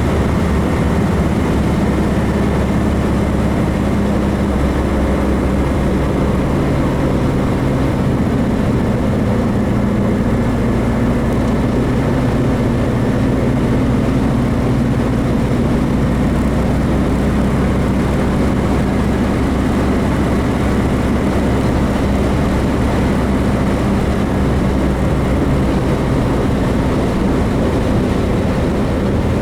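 Newly built 1776 cc air-cooled VW flat-four engine running steadily in a 1966 Volkswagen Beetle, its pitch rising and falling only slightly.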